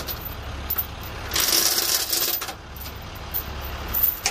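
Steel tow chains and hooks clinking and rattling against the truck frame as they are hooked up, with a louder stretch of rattling lasting about a second, about a second and a half in. Under it runs the steady low hum of an idling truck engine.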